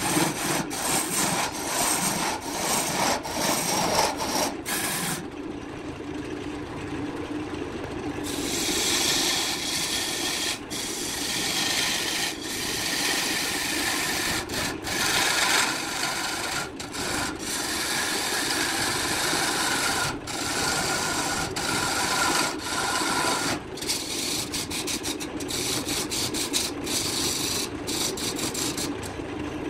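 A turning tool cutting a spinning wooden blank on a BURT wood lathe: a continuous scraping, rubbing cut as shavings tear off. The tone of the cut shifts a few times as the tool moves across the piece, and there are a few brief breaks.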